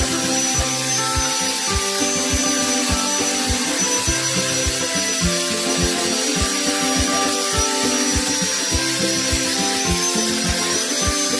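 Background music with a steady beat, over an angle grinder with a sanding pad running with a steady high whine and hiss as it sands rust off the steel fan blades.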